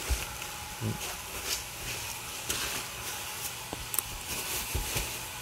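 Scattered rustling of foil bubble-insulation packing and plastic bubble wrap being handled over a cardboard shipping box, with a few small knocks and one sharp tick about four seconds in, over a steady low hum.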